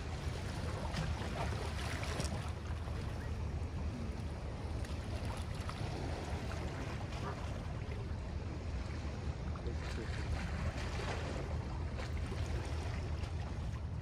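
Small waves lapping and splashing against shoreline rocks, a soft wash every few seconds, over a steady low rumble.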